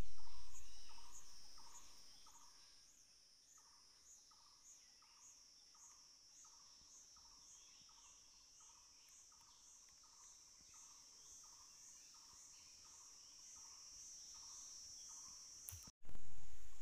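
An insect singing: a steady high buzz that pulses about one and a half times a second, growing louder toward the end and cutting off near the end. A low rumble at the start fades away over the first couple of seconds.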